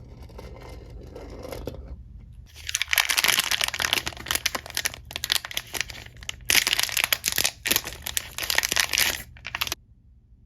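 Packaging being handled, then crinkled and torn open: loud, dense crackling that starts about two and a half seconds in and stops shortly before the end.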